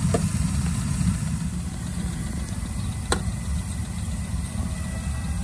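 Steady low rumble of a diesel-fired live-steam locomotive standing with its fire lit, the burner running without a break. A single sharp click about three seconds in.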